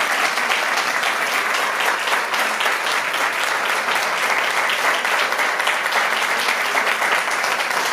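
A small seated audience applauding steadily, many hands clapping at once at an even level throughout.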